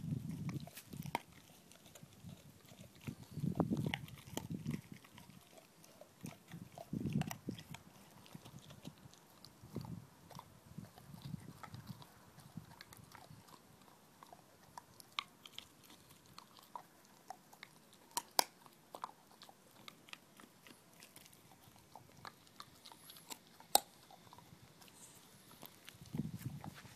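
Black Labrador retriever gnawing a chew bone: irregular bouts of chewing and crunching, heavier in the first half, with a couple of sharp cracks later on.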